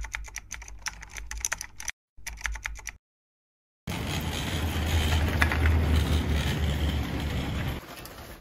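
Keyboard-typing sound effect for an animated title card: a quick run of sharp clicks over a low hum, broken by two short gaps. After about a second of silence, a loud, steady low rumbling noise sets in and eases off near the end.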